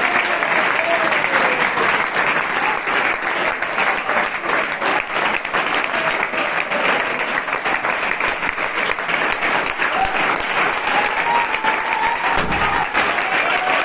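Crowd applauding: steady, dense clapping by many hands that runs on without a break.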